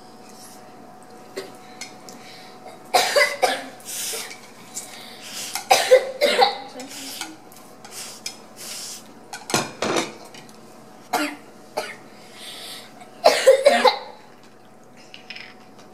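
Two people eating spicy instant noodles with chopsticks: slurps and mouth noises, broken by several short, loud coughs, with faint clinks of chopsticks on ceramic plates.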